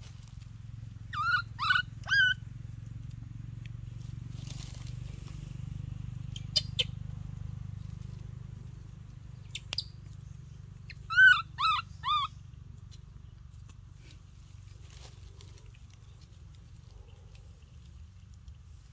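Baby monkey giving short, high-pitched squeaky calls in two bursts of three, about ten seconds apart.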